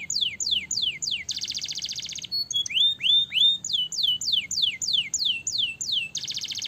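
Domestic canary singing: a string of descending whistled notes at about three or four a second, broken by a fast buzzing trill (roll) about a second in and again near the end, with a few rising notes in between.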